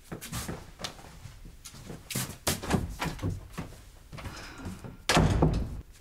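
A door slamming shut with a heavy thump about five seconds in, after a run of irregular footsteps and light knocks.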